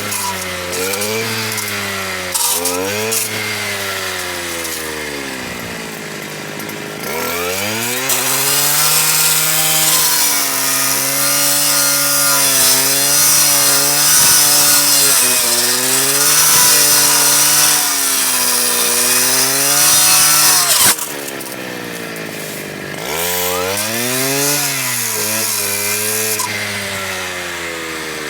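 Stihl KA 120 R power head driving a circular saw blade fitted with chainsaw teeth. The motor revs up and cuts wood for about thirteen seconds, then drops back abruptly and revs briefly once more near the end.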